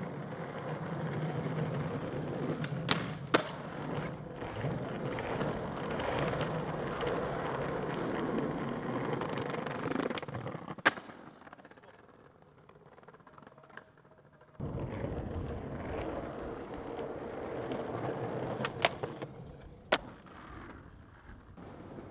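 Skateboard wheels rolling over pavement with a steady rumble. Sharp cracks of the board popping and landing come in a pair about three seconds in, once near the middle, and as another pair near the end. The rolling drops away for a few seconds past the middle, then starts again.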